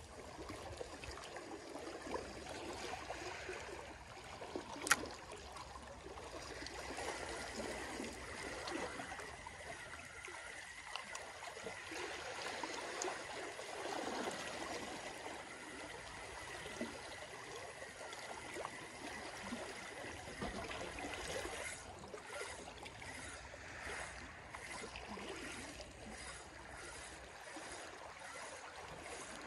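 Small waves lapping and trickling among the rocks at the water's edge, with a single sharp click about five seconds in and a run of soft, regular ticks near the end.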